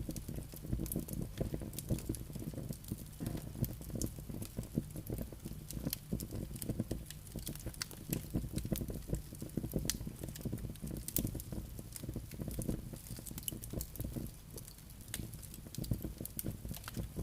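Wood fire in a fireplace burning steadily, logs crackling and popping in dense, irregular clicks over a low rumble of flame.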